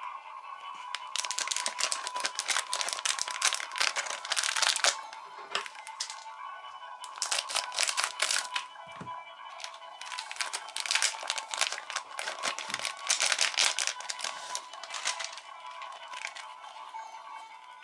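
Plastic sticker-pack wrapper crinkling and tearing as it is opened and handled, in three long bursts of crackly rustling with short pauses between.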